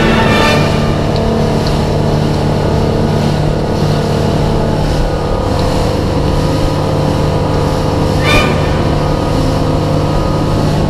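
Outboard motor running steadily at cruising speed, with water rushing past the hull. A short, sharper burst of noise comes about eight seconds in.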